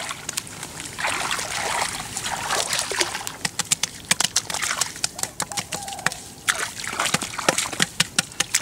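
Hands splashing and sloshing in shallow muddy rice-paddy water and working wet mud, with a quick run of sharp slaps and splats from about three seconds in.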